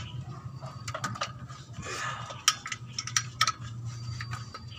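Metal hand tools clinking irregularly on the bolts of a Mitsubishi L300's clutch cover as it is being unbolted from the flywheel, the sharpest clink about two and a half seconds in, over a steady low hum.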